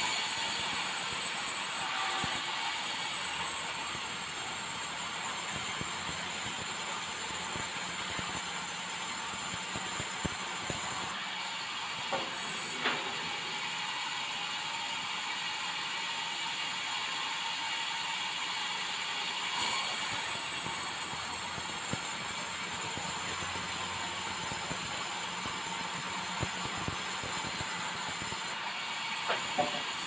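Vertical band sawmill ripping a bengkirai hardwood timber: a steady, loud hiss of the blade in the cut, its highest edge dropping out for a moment a few times, with an odd light knock.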